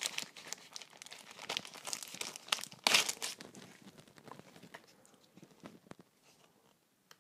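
Clear plastic sleeve crinkling and rustling in the hands as an instruction booklet is pulled out of it, loudest about three seconds in, then thinning out to soft paper handling.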